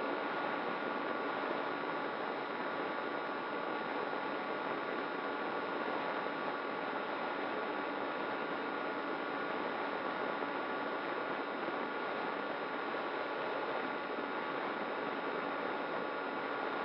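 Radio-controlled model plane in steady flight, heard through its onboard camera: a constant rush of air over the airframe with a faint, steady motor whine.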